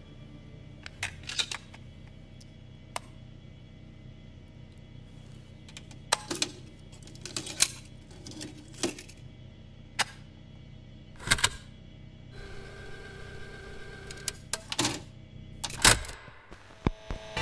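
Plastic clicks and clacks of a cassette tape being handled and loaded into an Optimus dual cassette deck, with the deck's buttons and tape door clicking, over a low steady hum. A short whir of the tape mechanism runs for about a second and a half two-thirds of the way through, and a quick run of clicks comes near the end.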